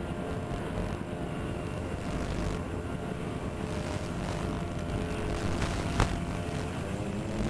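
Twin electric motors and propellers of a Twinstar RC plane running steadily, heard from its onboard camera with wind rushing past. One sharp click comes near the end.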